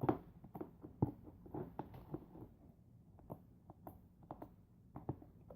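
Fluffy slime being squished and stretched by hand, giving faint, irregular sticky clicks and small pops.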